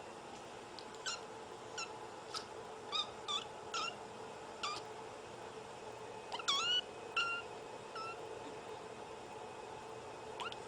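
Kitten mewing: about ten short, high, squeaky mews spread over several seconds, with a longer pause before the last one.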